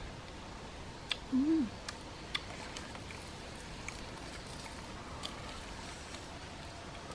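Light background hiss with a few small, scattered clicks as fingers pick apart cooked fish in a woven basket. About a second and a half in, a single short hooting note rises and then falls.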